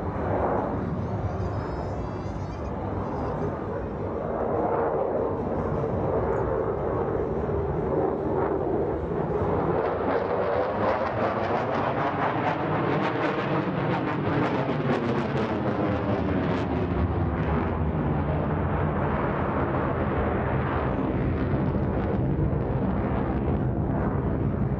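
F-16 fighter jet's single engine running loud through a display pass, a sustained jet noise whose tone sweeps and shifts as the aircraft moves across the sky.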